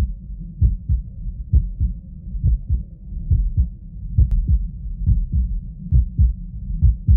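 Heartbeat heard through a digital stethoscope: steady lub-dub pairs of low thumps, about one pair every 0.9 seconds, over a low background rumble.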